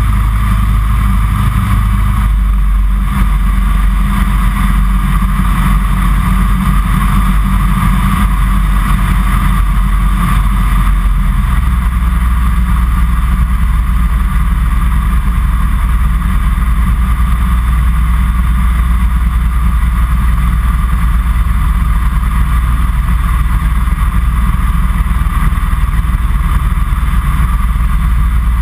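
Series 5 Kitfox light aircraft's engine and propeller droning steadily in flight, heard from inside the cockpit, the low note shifting slightly twice.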